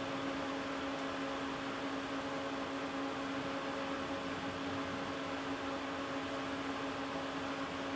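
A small motor running steadily in the background, a constant low hum with an even hiss over it.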